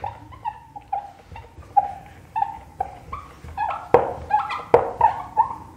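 Whiteboard marker squeaking as someone writes: a string of short, high squeaks at an uneven pace, with a couple of sharper taps about four seconds in.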